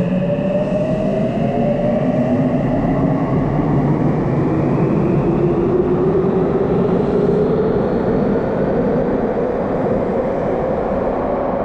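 Namboku Line subway train pulling out of the station. Its electric traction motors give a whine that rises slowly in pitch as it gathers speed, over a steady rumble of wheels on rails.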